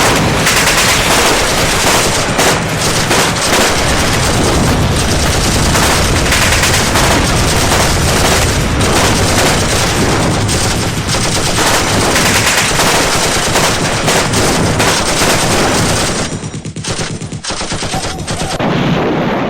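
Loud, continuous rapid automatic gunfire, densely packed shots with no let-up, thinning out briefly near the end.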